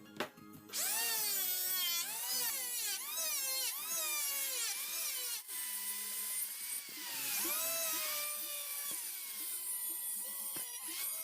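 Electric power tool cutting wood, its motor whine rising and falling in pitch again and again as it is loaded and eased off, starting under a second in.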